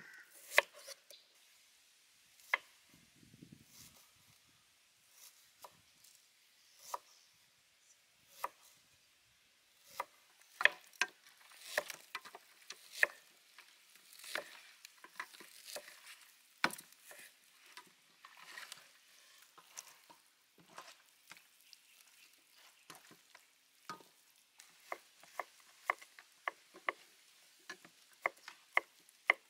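Large kitchen knife cutting red onion and garlic on a wooden chopping board: sharp separate knocks of the blade on the board, spaced out at first and coming quickly in the last few seconds.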